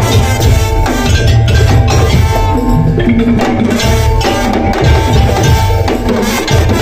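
Madurese daul (tong-tong) percussion ensemble playing loudly: driving drums and wood-block-like knocking under ringing tuned percussion carrying a melody.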